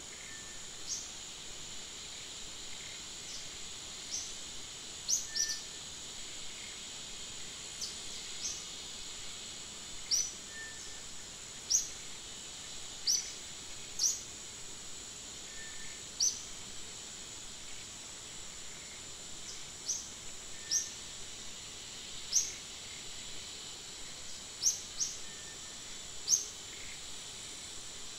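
A steady, high-pitched insect drone with short, sharp bird chirps repeating every second or two at irregular spacing.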